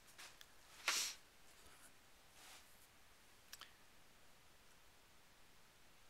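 Handling noises from sheets of paper prints being moved and shuffled: a few light clicks, then a brief rustle about a second in, and a double click a little later, against quiet room tone.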